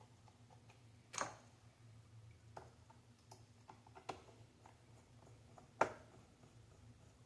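Light clicks and taps of parts being handled during reassembly of an Xbox Series S, a few scattered through, the sharpest about a second in and near six seconds, over a faint steady low hum.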